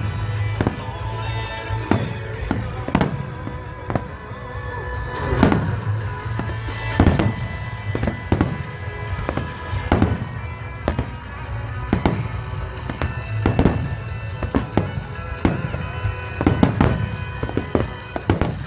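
Aerial firework shells bursting in quick succession, a sharp boom every second or so, with music playing underneath.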